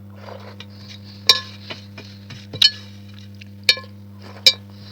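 Metal utensil clinking against a dinner plate four times, sharp strikes with a short ring, among lighter scrapes and taps.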